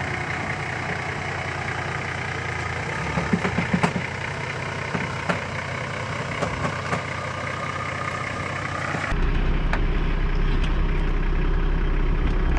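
Toyota LandCruiser 80 Series engine running slowly while the 4WD crawls over rock, with a few sharp knocks from about three to seven seconds in. About nine seconds in the sound changes abruptly to a louder, lower engine note.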